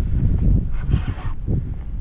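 Strong wind buffeting the camera microphone: a loud, uneven low rumble with gusts, with a brief higher hiss about a second in.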